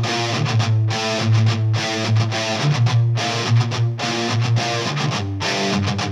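A recorded song with electric guitar and a steady beat.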